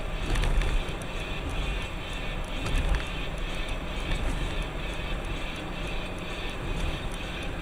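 Steady road and engine noise inside a moving car, picked up by a dashcam: a low rumble with a hiss above it and a few faint ticks.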